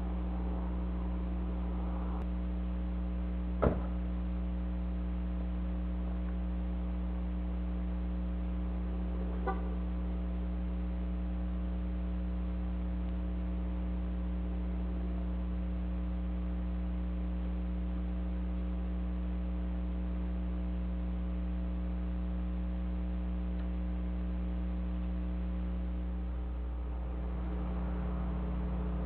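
Steady low hum, with one sharp click about three and a half seconds in and a faint tick near ten seconds. The hum dips and shifts slightly near the end.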